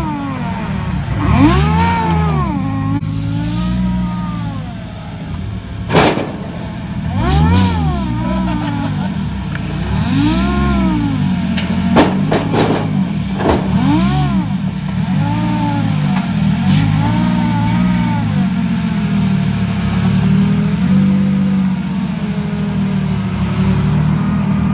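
Drift car engines revving again and again, each rev climbing and falling back in pitch, over a steady engine drone, with a few sharp cracks in between.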